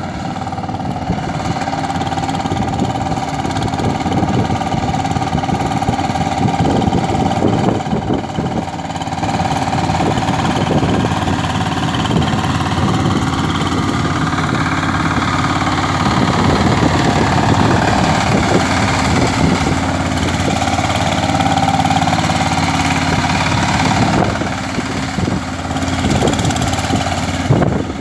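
Kirloskar power tiller's single-cylinder diesel engine running steadily under load as its rotary tines puddle a flooded paddy field.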